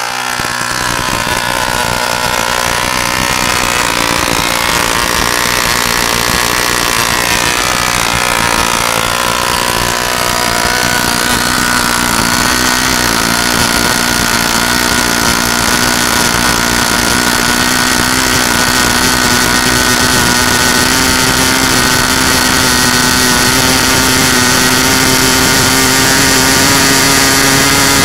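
1947 Foster .29 rotary-valve model two-stroke engine, converted from spark to glow ignition, running at high speed on a propeller on 0% nitro fuel. Its pitch wavers for the first ten seconds or so, then holds steady and creeps slightly higher.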